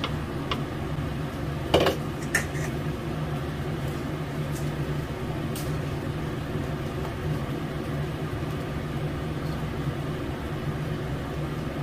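A spatula stirs blended chili paste as it is sautéed in oil in a wok, knocking sharply against the pan twice about two seconds in, then a few lighter clinks over a steady low hum.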